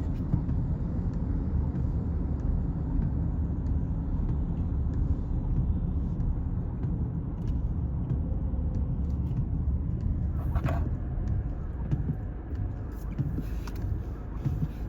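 Steady low road and engine rumble of a car driving, heard from inside the cabin, with one brief higher sound about ten seconds in.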